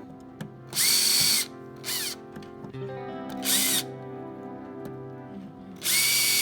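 Power drill/driver driving small screws in four short runs, the longest near the start and near the end. On each longer run the motor winds up to a steady whine. Background music plays steadily underneath.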